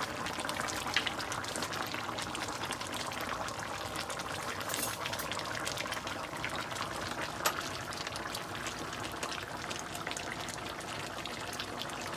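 Goat meat and tomato masala sizzling and bubbling as it braises in a karahi: a steady crackling hiss, with two light knocks, about a second in and again past the middle.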